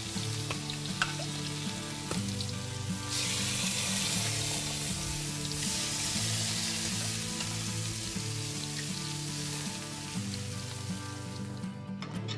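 Scallops in their shells sizzling on a grill over hot embers as an olive-oil, white-wine and brandy sauce is spooned onto them. The sizzle grows louder about three seconds in and stops shortly before the end. Background music plays low, held notes underneath.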